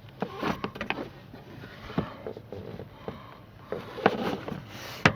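Plastic interior trim panels being handled and pushed into place: irregular rustling scrapes, clicks and knocks, with one sharp snap near the end.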